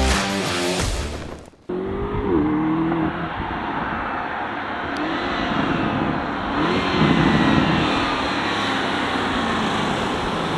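Music cuts off about a second and a half in. A Lamborghini Urus's twin-turbo V8 then runs as the SUV drives up, its engine note rising and falling a few times.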